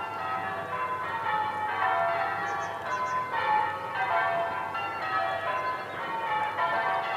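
A peal of church bells ringing changes, the notes falling in runs that start over about every second and a half.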